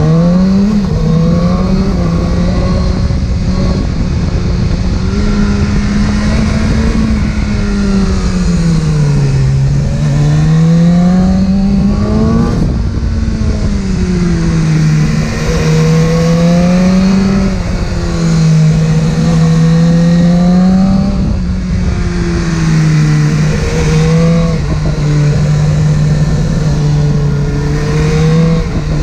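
Inline-four sport motorcycle engine heard from on board while riding, its pitch rising and falling smoothly as the throttle is rolled on and off at moderate revs.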